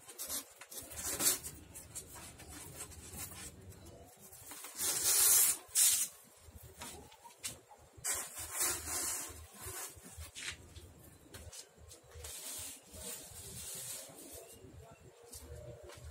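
A stack of polystyrene foam sheets being handled: foam rubbing and scraping in irregular bursts, the loudest about five seconds in and another a few seconds later.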